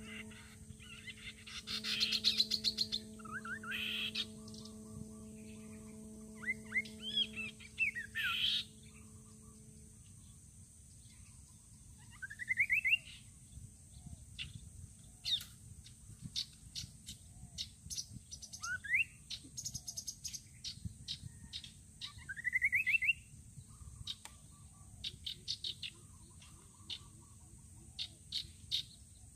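Rufous-capped babblers calling: scattered short sharp chirps and several rising trilled notes. A steady low hum runs under the first several seconds.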